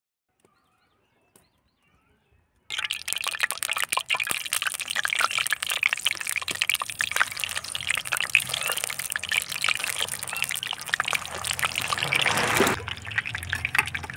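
Near silence, then about three seconds in a loud crackling sizzle starts suddenly: fish meatballs deep-frying in hot oil in a pan. It eases a little near the end.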